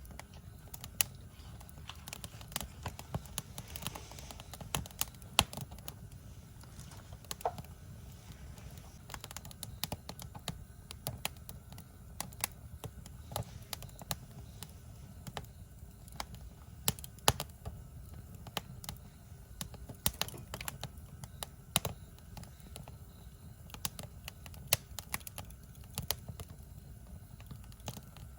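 Wood campfire crackling, with irregular sharp pops and snaps over a low, steady rumble of the burning fire.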